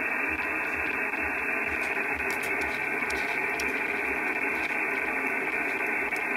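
Steady SSB receiver hiss from a Hama Nano USB DVB-T stick used as an RTL-SDR in HDSDR, tuned to an empty spot on the 2 m band. The static has its highs cut off sharply by the SSB receive filter, and no station can be heard in it.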